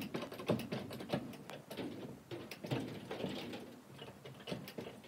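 High-lift jack (Jack-All) being pumped by its handle, its climbing mechanism clicking and clacking at each stroke as it ratchets up under the weight of a wooden barn wall. A rapid, irregular run of clicks and knocks, several a second.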